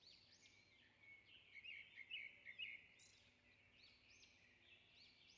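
Faint bird chirping: a run of short, high chirps, with a louder cluster of about three chirps around two seconds in.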